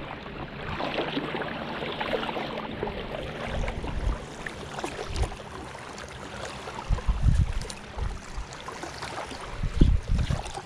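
Wind gusting on the microphone over a steady wash of small waves lapping in shallow water, with several deep rumbling buffets from stronger gusts in the second half.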